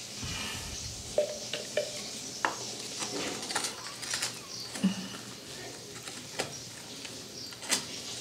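Scattered light clicks and taps of hard plastic as a blue plastic tee fitting is handled and pushed onto a glued pipe end during solvent welding.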